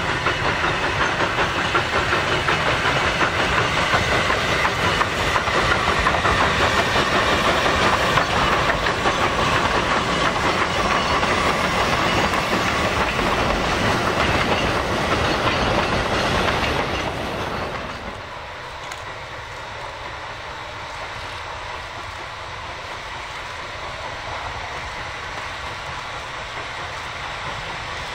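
NGG16 narrow-gauge Garratt steam locomotive hauling a freight train past, with the goods wagons rumbling and clacking over the rail joints. About two-thirds of the way through, the sound drops suddenly to a quieter, more distant train.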